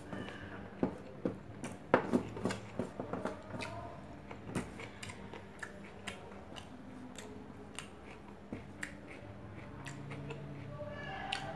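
Close-up eating sounds: wet clicks and smacks of chewing rice and chicken, with fingers picking rice off a stainless-steel tray. A busy run of sharp clicks comes about one to four seconds in, then they thin out to scattered ones.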